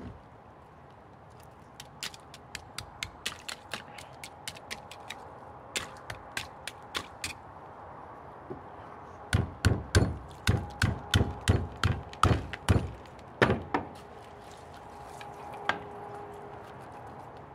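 Knife point chipping into a block of ice: a run of light, sharp ticks, then from about nine seconds in a series of heavier knocks, roughly three a second, for about four seconds.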